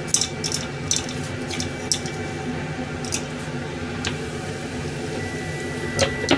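A salt shaker shaken in a few short, sharp rattles over a frying pan, over a steady low hum. Near the end a thin steady tone sounds for about a second, then the pan's glass lid clinks twice.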